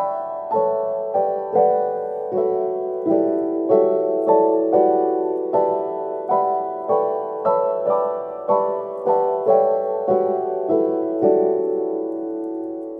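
Background music: a slow solo piano melody, single notes struck about two a second and left to ring, the last note held and fading near the end.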